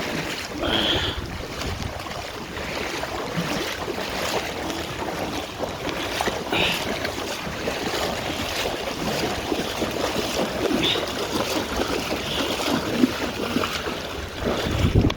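Steady rushing noise of fast-flowing floodwater, mixed with wind on the microphone.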